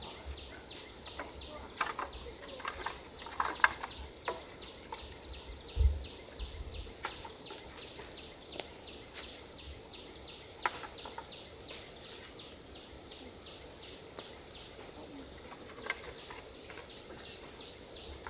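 Insects calling: a steady high-pitched drone under a cricket-like chirp repeating about four times a second. A few light clicks and a dull thump about six seconds in.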